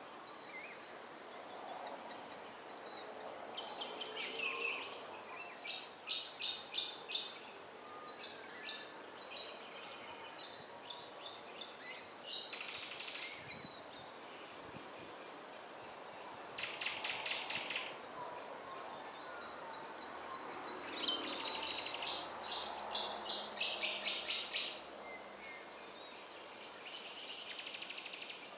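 Willie wagtail calling: several bursts of rapid, repeated high chattering notes a few seconds apart, over a steady background hiss.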